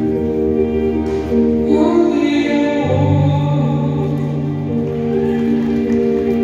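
Show music for a color guard routine: sustained chords with a voice singing over them from about two seconds in, and a deeper held bass note entering about a second later.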